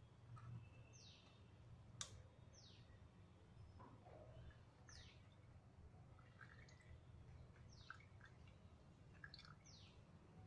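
Near silence with faint, short, high chirps from a bird, each falling in pitch, repeating every one to two seconds, and a single sharp click about two seconds in.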